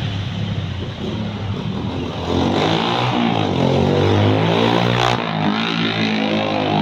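A motor vehicle's engine passing close by. It grows louder about two seconds in, and its pitch rises and falls as it goes past.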